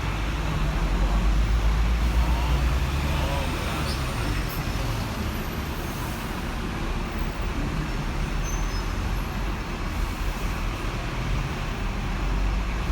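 Hong Kong double-decker tram riding along a city street: a steady low rumble from the running tram, a little louder in the first few seconds, mixed with surrounding road traffic and faint voices.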